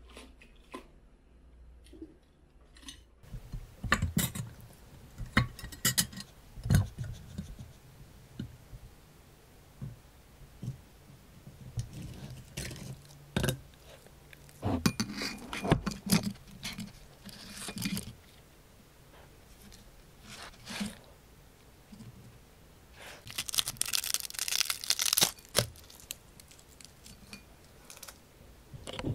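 Poodle biting and crunching a dried, unsalted big-eyed herring (디포리) treat close to the microphone: scattered crisp crunches, with a quick run of them about three-quarters of the way through.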